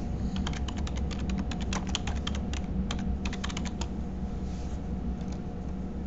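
Typing on a computer keyboard: a fast run of keystrokes lasting about four seconds, then a few single clicks near the end, over a steady low hum.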